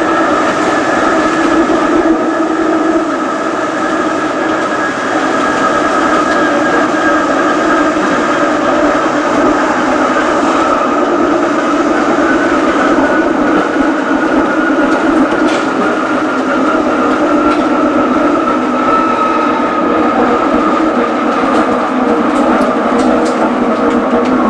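Electric tram running along its track, heard from on board: a steady whine from the traction motors and gears over the rumble of the wheels on the rails. The whine falls slowly in pitch over the second half as the tram eases off, with a few light clicks near the end.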